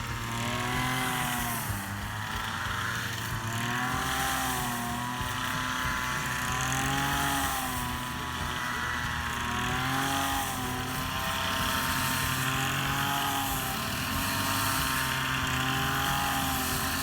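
Small engine of a hand-held rice cutter running steadily, its pitch dipping and recovering every few seconds.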